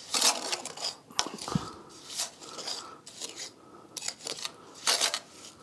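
Steel pointing trowel scraping bastard mortar off a flat metal board and pressing it into a brick joint, in several short, gritty scrapes.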